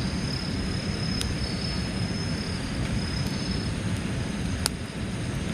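Campfire newly lit with fire starter on a fire-disc brazier, giving three sharp pops, about a second, three seconds and nearly five seconds in, over a steady low rumble of wind on the microphone, with a thin high tone on and off.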